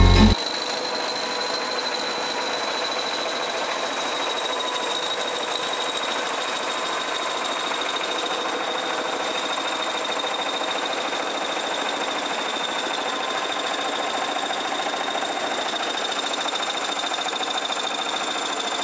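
Heavy logging machinery's engine running steadily at idle, with a thin high whine held over it.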